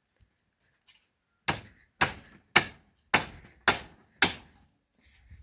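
Hammer blows during a gate repair: six sharp strikes about two a second, starting a second and a half in.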